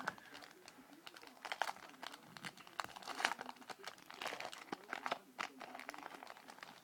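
Trading-card pack wrapper crinkling and tearing as it is opened by hand: a string of short, irregular crackles.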